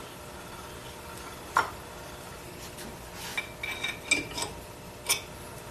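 A few light metal clicks and clinks, spaced out, some with a brief ring: a Ford 9-inch differential's ring gear rocked against its pinion by hand to feel for backlash, with a steel spanner wrench handled on the bench. One clink comes about a second and a half in, a cluster from about three to four and a half seconds, and another near the end.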